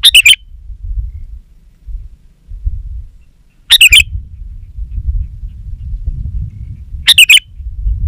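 Sooty-headed bulbul calling: three short, loud, bubbly calls about three and a half seconds apart, over a low rumble.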